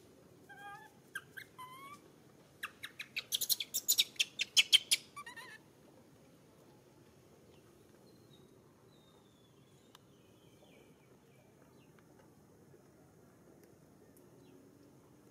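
Infant long-tailed macaque crying: a few short, wavering pitched cries in the first two seconds, then a rapid run of loud, harsh pulsed cries lasting about three seconds. Only a few faint thin calls follow.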